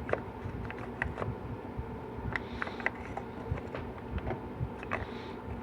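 Scattered light clicks and taps of small tools and parts being handled on a bench, over a steady low hum.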